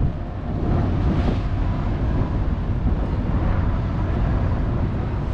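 Steady low rumble and hum of a large container ship passing close by, mixed with wind on the microphone.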